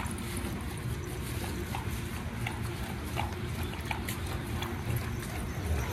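Dogs milling about together on dry dirt: faint, irregular short clicks and scuffs, with no barking, over a steady low rumble.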